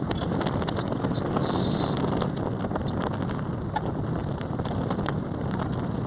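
Steady wind rushing over the microphone, mixed with engine and road noise from a motorbike moving along at road speed.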